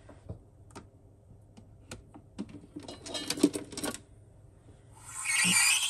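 Scattered light clicks and a quick rattle of taps, then about five seconds in the espresso machine's steam wand starts with a loud, steady hiss as steam comes through for frothing milk.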